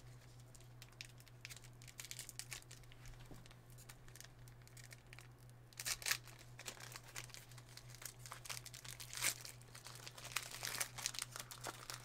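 Plastic wrapping on trading cards being torn and crinkled open, quiet at first and then in short crackling bursts from about halfway through, over a steady low hum.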